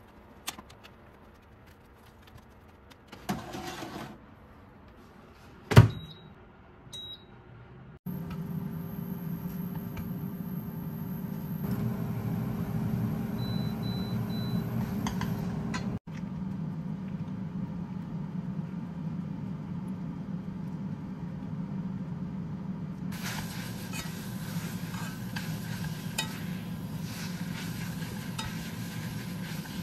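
Countertop oven running with a steady low hum while chicken cooks inside, after a few light clinks of metal tongs on the oven tray and a sharp clack.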